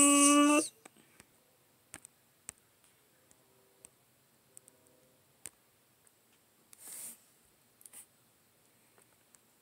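Scattered light plastic clicks and taps from handling a Transformers Waspinator action figure, with a short rustle about seven seconds in. A drawn-out male voice ends under a second in.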